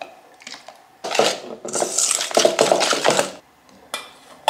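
Metal wire whisk beating egg and vanilla into cookie batter in a stainless steel bowl: a fast run of metal-on-metal scraping and clinking for about two seconds, starting about a second in. A few lighter clicks come before it and one just before the end.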